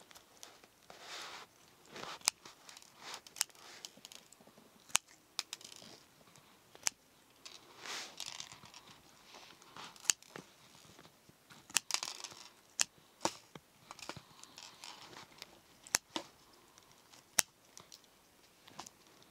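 Hands squishing, pulling and tearing pink glitter slime: sharp clicks scattered throughout, with a few stretches of rustling and crinkling. Scissors cut into the slime near the end.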